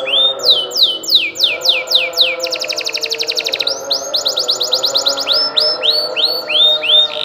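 Domestic canary singing a long rolling song: phrases of quickly repeated, sweeping high notes, with a fast even trill around the middle.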